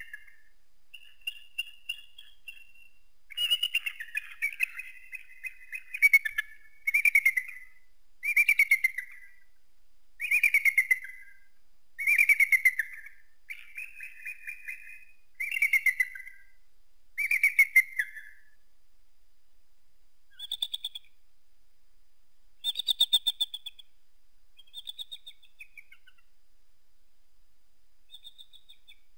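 Eagle calling: a series of high, rapid chittering calls, about one every one and a half to two seconds, followed by a few sparser, higher calls in the second half.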